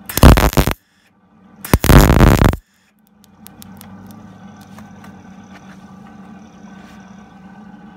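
MIG welder arc crackling on the steel sill in two short stitch-weld bursts of under a second each, right at the start and about two seconds in. After that, only a faint steady low hum with a few light clicks.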